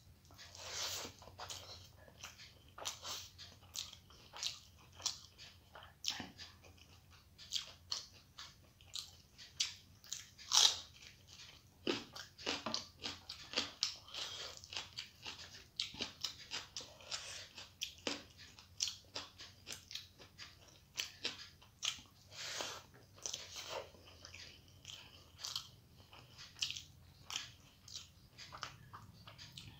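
A person chewing and biting mouthfuls of rice and curry, close to the microphone: many short mouth clicks and bites, two or three a second, the sharpest about ten seconds in.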